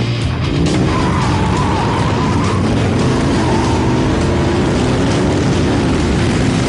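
Rock music with a distorted electric guitar playing a lead line of bending, wavering notes over bass and drums.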